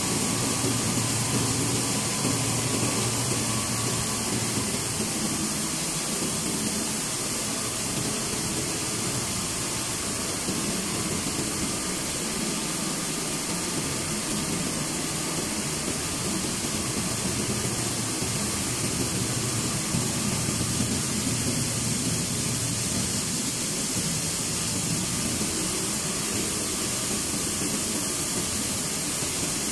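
Rice milling plant machinery running: a steady low hum with a faint whine and a hiss over it.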